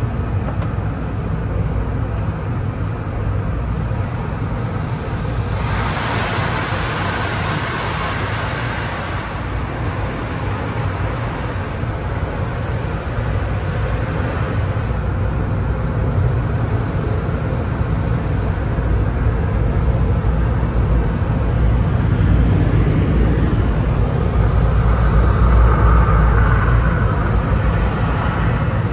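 Car wash tunnel equipment heard from inside a car's cabin, over a steady low rumble. About six seconds in, a rush of water spray hisses against the windshield and body for several seconds. The air dryer blowers grow louder near the end.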